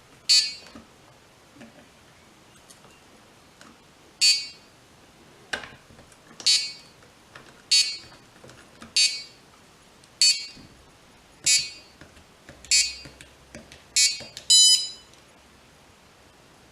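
Electronic buzzer of a homemade Arduino airsoft time bomb beeping: short, sharp, high beeps, two far apart at first and then one about every second and a quarter. Near the end the last beep is followed at once by a different, more clearly pitched tone.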